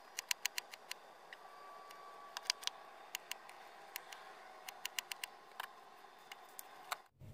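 Kitchen knife chopping an onion on a cutting board: a string of sharp, uneven knocks, some in quick runs of three to five.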